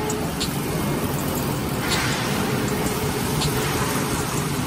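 Steady running noise of a CNC grinding machine and its coolant system: a low hum under an even hiss, with a few faint light ticks.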